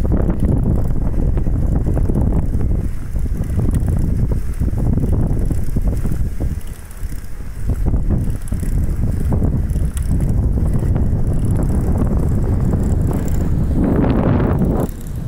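Wind rumbling on the microphone of a camera moving along on a recumbent trike, a steady low noise with a brief louder swell near the end.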